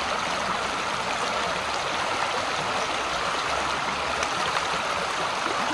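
Shallow creek running over rocks, a steady rush of flowing water.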